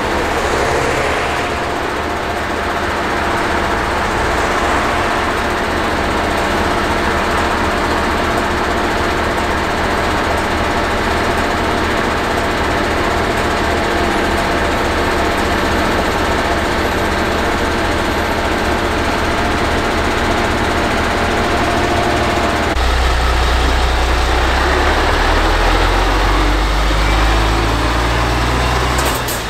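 Ropa Maus 5 sugar beet cleaner-loader working steadily, its diesel engine and conveyors running as beets are loaded. About 23 seconds in the sound changes to a deeper, heavier engine sound from a MAN truck's diesel.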